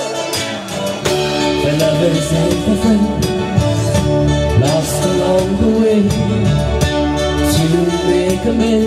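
Live band playing an original song: two women singing lead and harmony into microphones over strummed acoustic guitar, electric guitar or bass and a drum kit, with steady drum hits.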